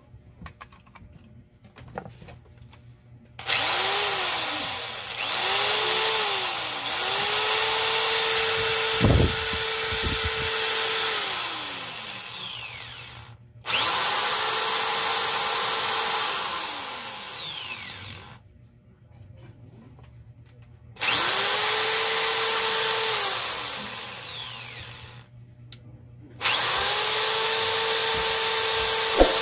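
Corded electric drill run in repeated trigger pulls: about six runs, the first two brief. Each run starts with a whine rising as the motor spins up and ends with a falling whine as it coasts down. This is a test run after repair of a fault that had made the drill stop during work.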